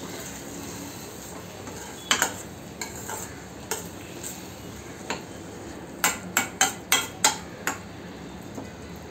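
Steel spoon stirring and scraping mashed baingan bharta in a stainless-steel kadai, clinking against the pan's side, over a steady sizzle from the mash cooking on a low flame. The clinks come singly at first, then in a quick run of about seven between six and eight seconds in.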